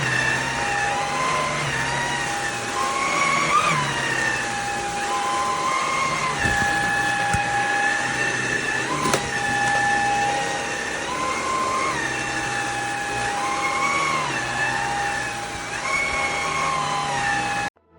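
Cordless stick vacuum cleaner, the Vax HomePro Plus, running with a steady motor whine. Its pitch rises and falls every couple of seconds, as the load changes while it is pushed back and forth. It cuts off suddenly near the end.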